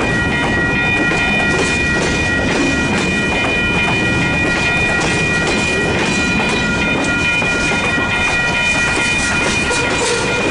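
A CN freight train's cars rolling past, with a steady clatter of wheels over the rail joints. A high-pitched steady whine holds throughout.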